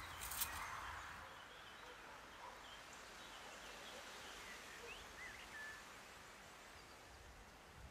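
Faint outdoor ambience with a few short, faint bird chirps in the middle, and a brief knock about half a second in.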